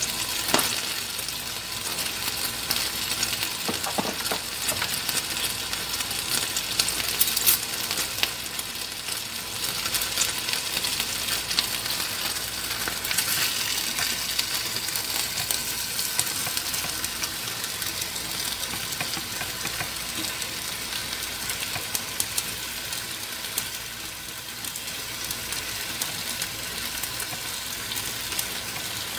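Chicken pieces frying in oil in a pan, with a steady sizzle. A few sharp clicks and knocks sound as the pieces are handled, the clearest early and around 4 and 7 seconds in.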